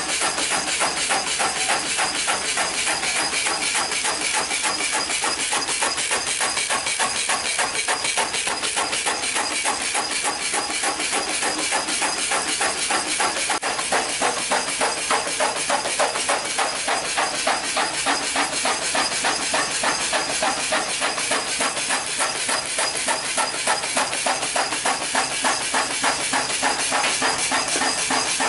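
Wood stick-cutting machine chopping wood into thin sticks, its blade striking in a fast, even, unbroken clatter.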